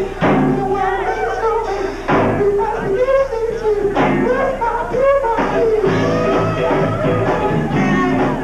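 Live funk band playing, bass guitar and drums, with a woman singing lead into the microphone.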